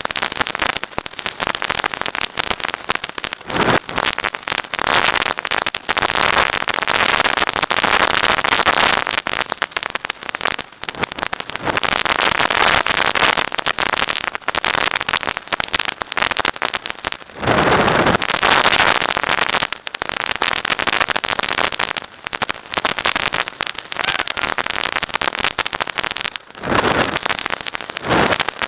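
Helicopter in flight: loud, crackling, distorted rotor and engine noise with wind buffeting the small camera microphone, surging up and down throughout.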